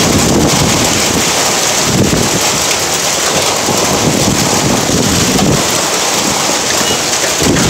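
Hailstorm: ice-cube-sized hail and rain pelting down in a dense, steady hiss.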